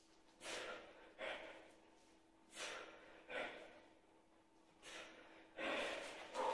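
A man breathing hard under load while squatting with two kettlebells: short, hissing breaths in pairs about every two seconds, a sharp breath in and a forced breath out with each squat. A faint steady hum runs underneath.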